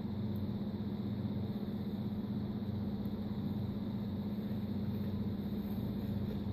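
Steady low machine hum that does not change, from a running motor or appliance.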